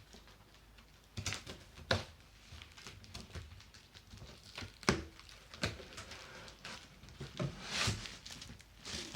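Cardboard box and packing being opened and handled by hand: irregular knocks, scrapes and crinkling rustles, with a sharp knock about five seconds in and a longer rustle near the end.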